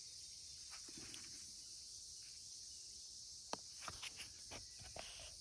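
A steady, high-pitched chorus of insects, with a few faint clicks and taps in the second half.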